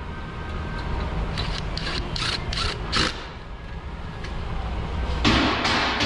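Hand ratchet wrench clicking through a quick run of short strokes as it turns a bolt, pausing, then two more strokes near the end.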